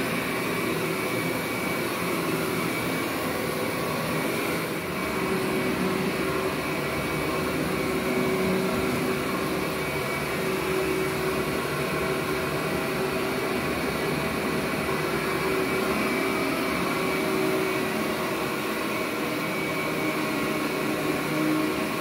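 Workhorse upright vacuum cleaner running steadily as it is pushed back and forth over carpet, a continuous motor whine over the rush of air with slight swells in loudness.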